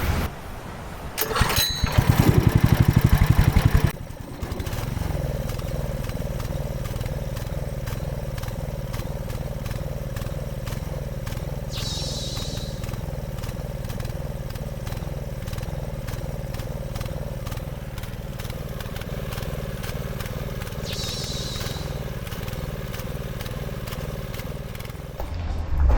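A small engine cranks with fast pulsing for about two seconds, catches, and then runs steadily.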